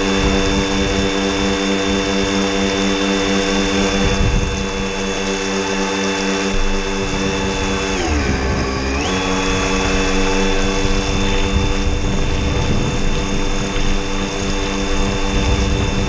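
Electric motor of a radio-controlled model boat running under power, a steady whine heard from on board. About eight seconds in the pitch drops and climbs back within a second as the throttle is eased and reopened. Wind and water rush underneath.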